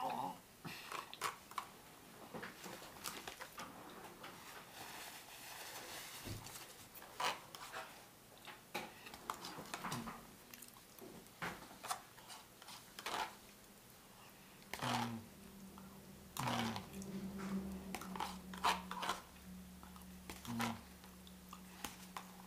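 A person chewing ravioli close to the microphone, with mouth sounds and scattered sharp clicks and taps. About two thirds of the way through, a low steady hum starts and carries on.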